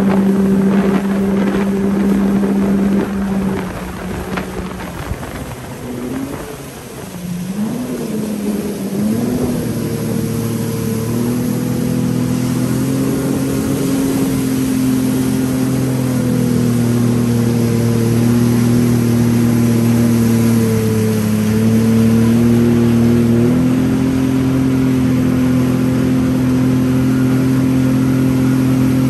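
Jet ski engine running at speed, easing off about three seconds in and dropping to low, wavering revs, then opening back up and running steadily at higher revs from about ten seconds on.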